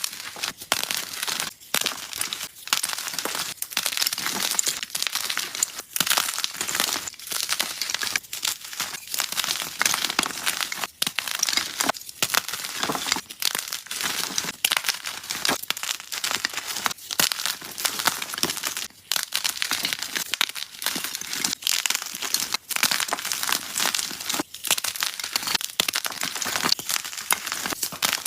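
Soft blocks of gym chalk being crushed: dense, crumbly crunching and crackling that goes on almost without a break, with short pauses every second or so.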